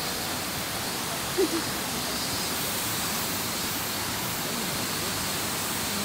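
Rushing water of a rocky mountain stream cascading over boulders at a small waterfall, a steady, even rush. A brief pitched sound stands out about a second and a half in.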